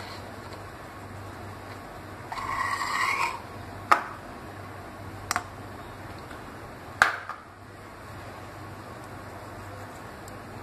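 Flour being sifted through a metal mesh sieve over a bowl: a scraping rasp about two seconds in, then a few sharp taps of metal as the sieve is knocked and shaken, over a faint steady hum.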